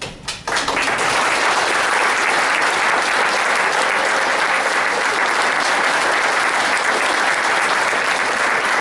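Audience applauding: a few scattered claps, then about half a second in the whole crowd joins in steady, sustained clapping.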